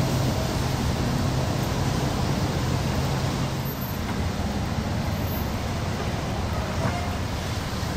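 Steady rushing noise of wind and water, with a low boat-engine hum that fades out about halfway through.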